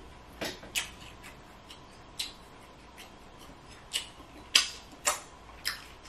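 Close-miked eating sounds: short, wet mouth smacks and clicks of chewing seafood, about seven at irregular intervals.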